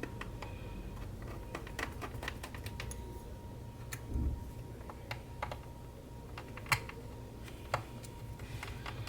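Irregular light clicks and ticks of a small screwdriver and screws on a MacBook Pro's aluminium bottom case as the case screws are driven in and tightened, with two sharper clicks late on.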